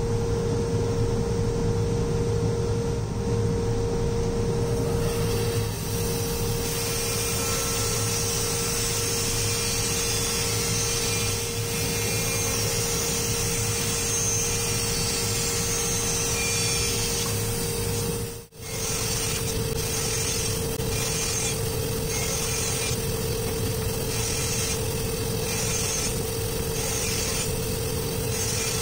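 Bandsaw running with a steady hum, its blade cutting through plywood from about five seconds in. In the later part the cutting comes in short passes roughly once a second.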